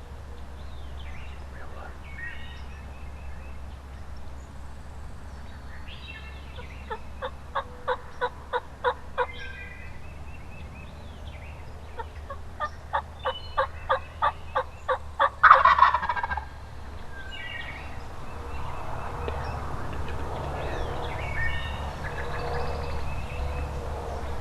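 Eastern wild turkey yelping and gobbling. Two runs of evenly spaced yelps come, about eight notes and then about twelve, and the second ends in a loud burst. Short rattling gobble-like calls come in between.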